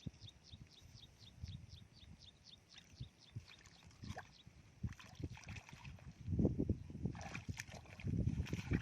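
Water sloshing and splashing as someone moves through shallow lake water, with two louder spells of splashing about six and eight seconds in. A high chirping, about four chirps a second, runs through the first few seconds.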